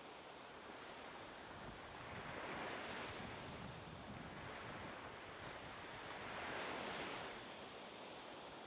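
A rushing, surf-like noise with no tones or clicks, swelling and fading twice, about two and a half and six and a half seconds in.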